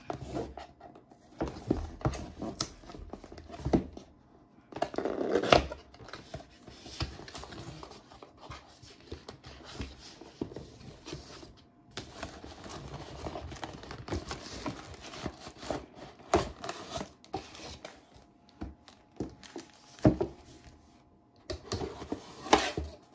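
Cardboard box and cardboard inserts being handled and opened: irregular sliding, scraping and knocking of the card, with some crinkling of the thin wrapping around the packed item.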